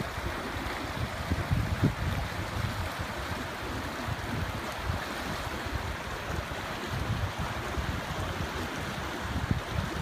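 Fast mountain creek rushing over rocks in white-water rapids, a steady wash of water, with uneven gusts of wind buffeting the microphone.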